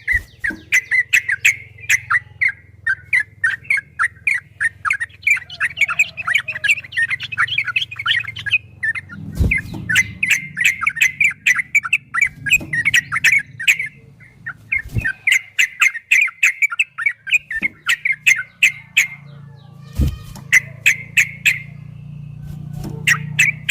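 Yellow-vented bulbul (trucukan) singing a long, rapid chattering song: runs of quick repeated notes several seconds long, separated by short pauses. A few dull knocks come about a third of the way in, near the middle and a little past it, over a faint low hum.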